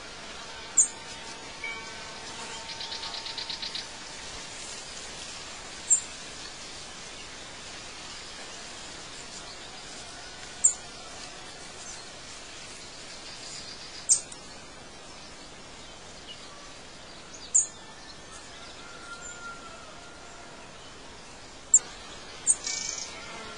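Birdsong ambience over a steady hiss: a sharp, very high chirp every three to four seconds, with two close together near the end, and a fast trill about three seconds in, with a few faint lower whistles between.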